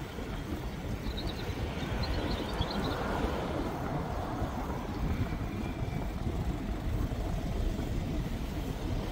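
Steady rumbling road and wind noise from riding an e-bike through traffic, with the wind buffeting the handlebar-mounted phone's microphone.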